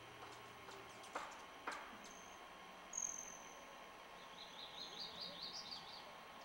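Faint, high bird calls: a thin falling whistle about three seconds in, then a quick run of short rising chirps. Two soft knocks come about a second in, over a low steady hiss.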